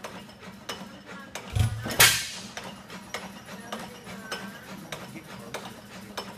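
4 hp Krueger Atlas hit-and-miss engine turning over on its flywheels, with a steady patter of mechanical clicks, firing once with a sharp bang about two seconds in.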